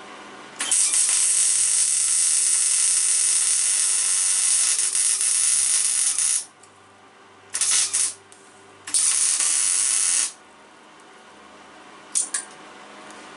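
Electric arc welding, building up weld to fix a nut onto a broken stud: a long crackling weld of about six seconds, then two shorter welds and a brief tack near the end.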